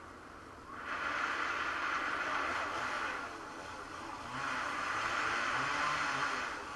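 Road traffic: two vehicles passing close one after the other, their tyre and engine noise swelling up about a second in and again about four seconds in.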